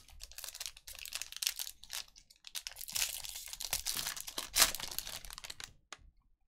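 Foil wrapper of a 2020 Panini Mosaic football hobby pack crinkling as it is torn open by hand. The loudest moment is a sharp tear about two-thirds of the way through, and the sound stops shortly before the end as the cards come out.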